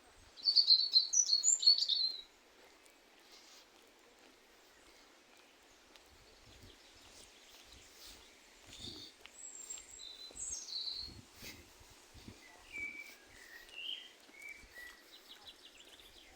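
Wild birds chirping: a loud burst of quick high chirps in the first two seconds, then quieter scattered calls later on, with faint low thuds underneath.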